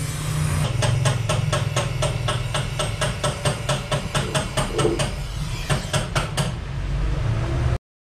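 Gas brazing torch burning with a steady rumble and hiss while a refrigerator evaporator tube joint is brazed. Over it runs a rapid, even series of sharp ticks, about five a second, until it stops suddenly near the end.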